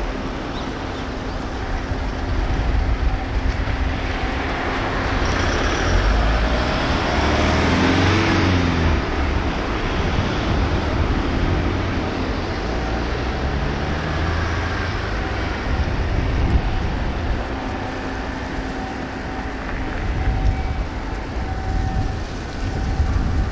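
Road traffic passing: a vehicle goes by about eight seconds in, getting louder and then fading with its pitch falling as it passes, and another passes more quietly a few seconds later, over a steady hum.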